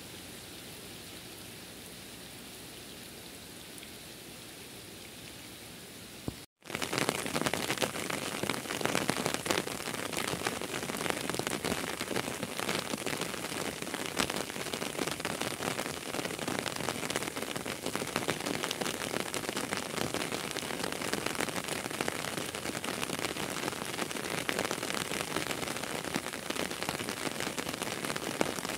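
Steady rain, a soft even hiss at first. About six seconds in the sound cuts out for a moment, then comes back as heavier, louder rain with dense drop impacts.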